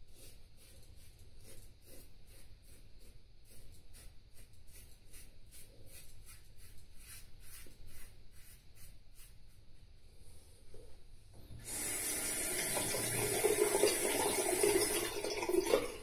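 Feather Popular safety razor scraping through lathered stubble in short strokes, two or three a second. About twelve seconds in, a tap runs loudly for about four seconds, rinsing the razor.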